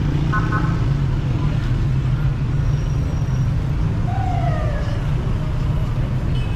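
Steady city street traffic rumbling, with snatches of passers-by talking.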